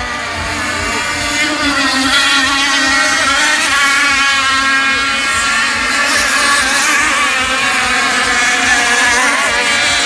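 Several radio-controlled racing boats with 26 cc two-stroke petrol engines running hard around the course, a high engine whine that rises and falls in pitch as the boats pass and turn.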